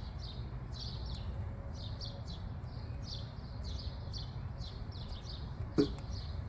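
A small bird chirping over and over, about three short falling chirps a second, over a low steady rumble. A single sharp click near the end.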